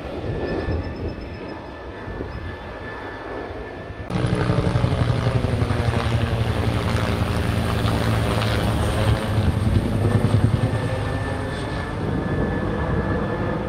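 Air force helicopter flying low overhead: a steady rotor and engine sound that jumps suddenly louder about four seconds in and sweeps in pitch as it passes over.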